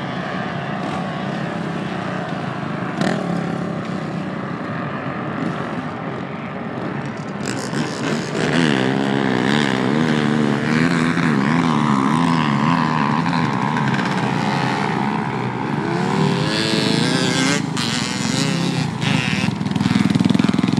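Sport quad engines running: a steady engine rumble at first, then from about eight seconds in a nearby engine idling with its pitch wavering up and down, and rising revs a little past the middle.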